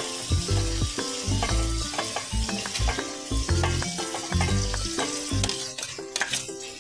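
Chicken pieces sizzling as they fry in oily spiced tomato masala in a steel pot, stirred and turned with a metal ladle.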